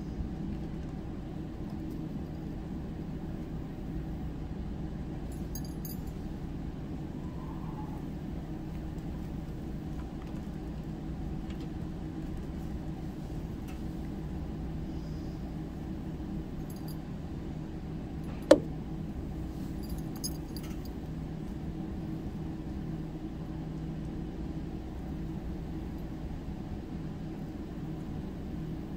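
Steady low machine hum, with faint metallic jingling now and then and one sharp click about two-thirds of the way through.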